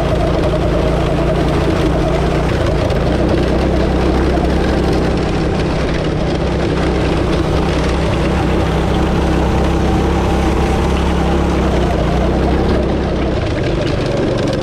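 Predator 212cc single-cylinder four-stroke go-kart engine running steadily at speed under load. Its note drops a little near the end.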